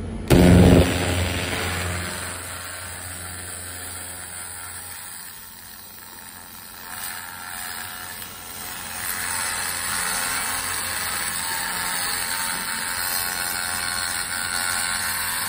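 300 W pulsed fiber laser cleaner ablating the finish off a wooden panel: a steady high hiss that grows louder about halfway through. It starts with a short, very loud burst and a low machine hum that fades over the first few seconds.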